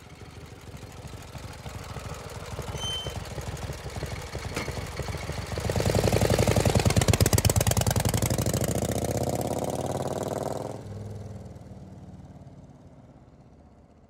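Engine sound effect: a fast-pulsing engine builds up, is loudest and revs higher for about five seconds in the middle, then cuts back suddenly and fades away.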